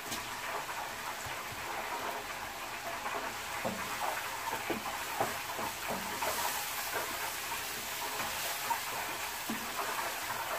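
Prawns tipped into a frying pan of hot oil and masala, sizzling steadily as they are stirred, with the spoon knocking and scraping the pan now and then.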